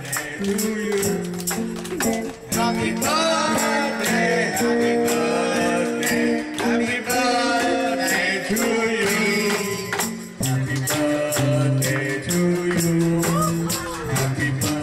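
Karaoke backing music with a steady beat, played over a loudspeaker, with a man singing along into a microphone.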